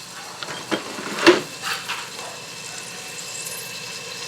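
Fatty chicken pieces frying in a pan with a little cooking oil: a faint sizzle under a few sharp knocks of a utensil against the pan, the loudest about a second in.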